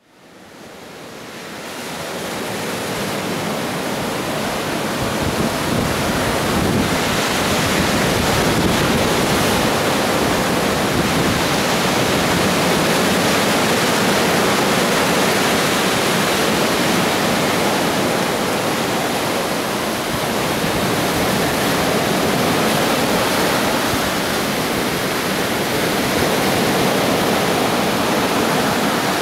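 Ocean surf: waves breaking and washing up the sand, a steady rush that fades in over the first two seconds.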